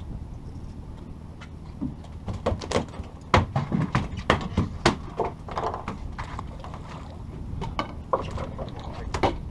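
Fishing boat's engine running with a steady low hum, under a run of sharp knocks and clatter on deck, thickest from about two to six seconds in, with a few more near the end.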